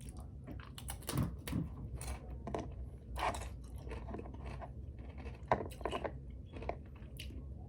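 A person chewing and crunching food close to the microphone, with irregular crisp crunches.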